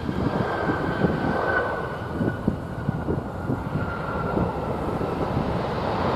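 Boeing 737-800 jet engines running as the airliner rolls fast along the runway: a rough rushing noise with a steady whine.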